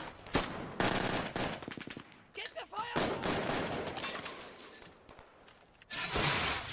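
Automatic gunfire from a film battle scene: several bursts of rapid shots with short lulls between them, and a louder burst near the end.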